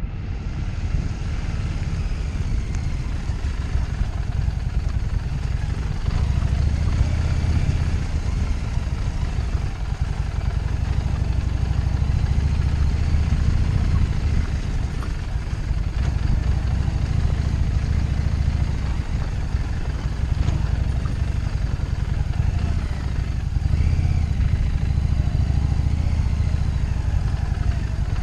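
Harley-Davidson Street 750 V-twin motorcycle engine running steadily with a low rumble, its level rising and falling a little as it rides.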